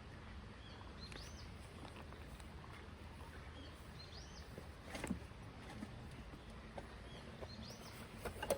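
A bird calling three times, each a short arched note that rises and falls, about three seconds apart, over a steady low background rumble. Two sharp clicks come about halfway through and near the end.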